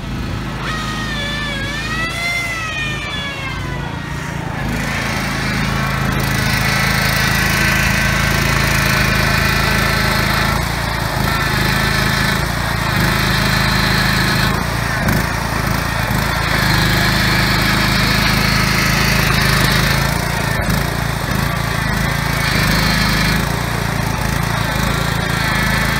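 Engine of a Grillo Climber 7.13 ride-on mower running under load while towing a van stuck in mud, its level shifting every few seconds. In the first few seconds a whine rises and then falls, and the engine grows louder from about four seconds in.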